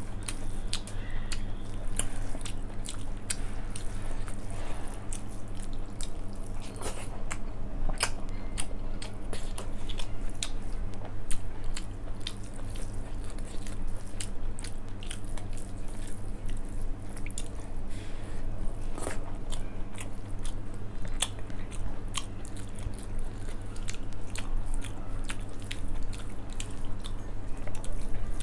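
Fingers mixing cooked rice with dal on a steel plate, close-miked: wet squishing with frequent sharp little clicks, over a steady low hum.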